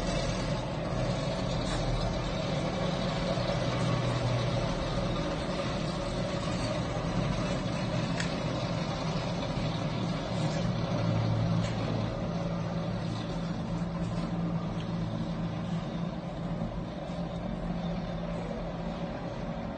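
Motor vehicles driving along a road, a steady low engine drone that swells and eases as they pass.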